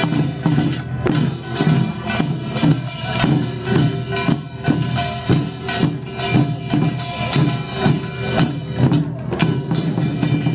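Korean pungmul percussion band playing a fast, steady rhythm on drums and gongs.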